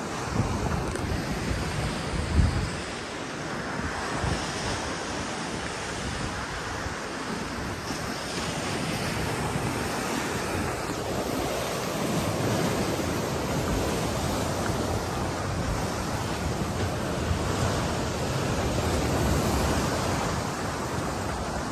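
Surf breaking on the shore in a continuous wash, with wind buffeting the microphone now and then, the strongest gust about two and a half seconds in.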